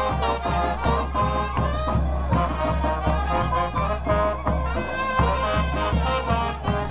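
Brass band playing a lively dance tune, horns over a steady drumbeat.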